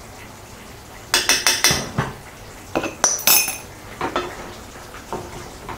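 Utensils knocking and clinking against a stainless steel pot as a spoonful of curry paste goes into the curry and is stirred in with a wooden spatula. There is a quick run of about five clinks just after a second in, a ringing metal clink a little after three seconds, and a few softer knocks later.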